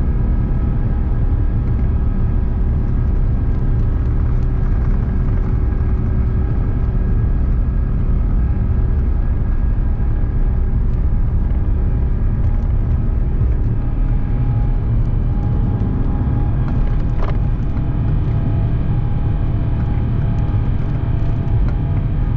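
Airbus A350-900's Rolls-Royce Trent XWB engines at takeoff thrust, heard inside the cabin: a loud, steady roar with several steady whining tones over a low rumble from the wheels on the runway. The rumble drops away about two-thirds of the way through as the aircraft lifts off, and there is one brief click shortly after.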